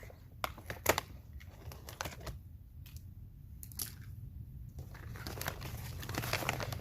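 Bag of thistle seed crinkling and rustling as a measuring cup is pushed in to scoop seed, with a few sharp clicks, the loudest about a second in, and a thicker rustle near the end.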